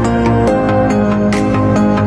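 Background music: held, layered notes with occasional light percussive hits.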